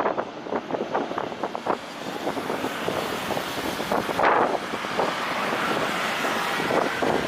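Strong gusty wind buffeting the microphone, an uneven rushing noise that flutters and surges.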